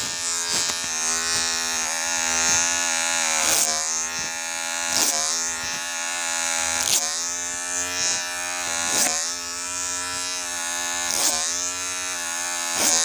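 Electric hair clipper buzzing steadily as it cuts hair, with a short rasp every second or two as the blades pass through the hair.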